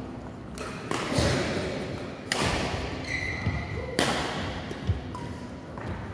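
Badminton rackets striking a shuttlecock: a handful of sharp hits, with short high squeaks of court shoes on the floor in between.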